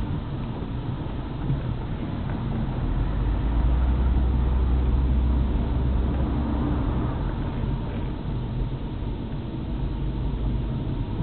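Car engine and road noise heard from inside a moving car: a steady low rumble that swells for a few seconds in the middle.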